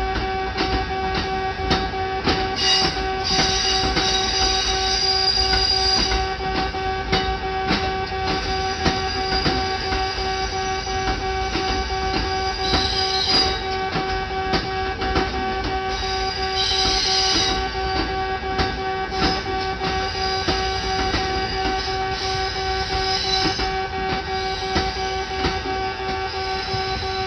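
Japanese level crossing alarm ringing steadily with a repeating two-tone ding, while a Kintetsu train runs over the crossing. Brief high-pitched wheel squeals come three times: a few seconds in, around the middle, and about two-thirds through.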